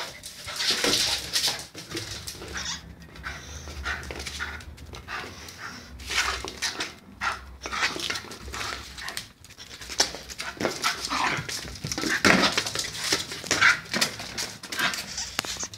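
A small dog panting as it pushes a ball around a hard floor, with scattered knocks and scrapes throughout.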